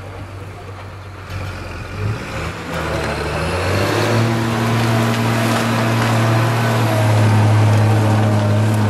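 Heavy diesel engine running under load: it grows louder over the first few seconds, then holds a steady, strong drone.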